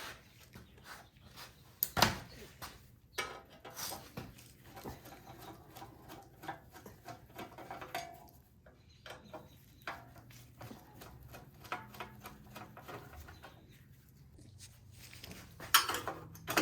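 Scattered clicks, knocks and rattles of hand work on a snowblower's engine casing being taken off: loose parts and fasteners handled, with a sharper knock about two seconds in and a busier run of clatter near the end.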